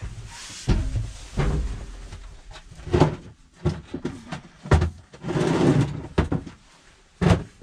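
Several knocks and bumps, about six in all, with rustling in between, as things are handled in a small enclosed space. A low rumble comes with the first bumps.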